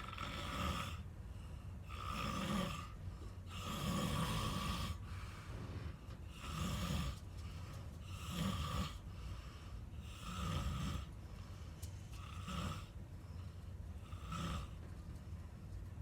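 A sleeping person snoring in a steady rhythm, about eight snores roughly two seconds apart; the one about four seconds in is longer than the rest.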